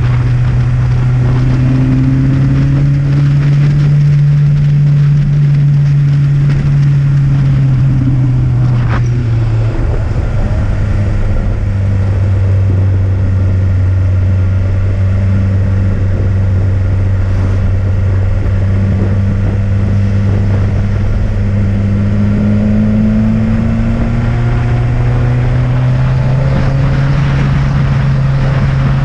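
Vehicle engine running under load on an uphill climb, a steady drone that drops suddenly in pitch about ten seconds in and then rises slowly again in the last few seconds.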